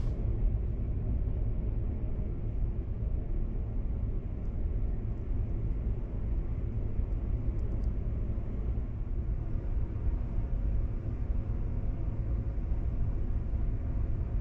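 Steady low rumble of a large ferry's machinery, engines and ventilation, heard from inside a passenger cabin, with a faint even hum running through it.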